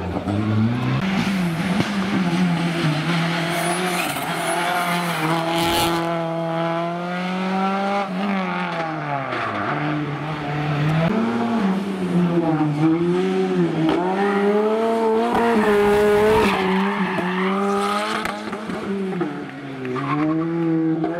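Rally car engines revving hard through a bend, one car after another. The pitch rises and drops again and again as the drivers blip, shift and get back on the throttle, with tyre squeal in places.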